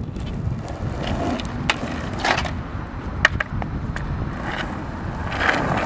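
Skateboard on asphalt: a low rumble of the wheels, broken by several sharp clacks as the board knocks down onto the ground.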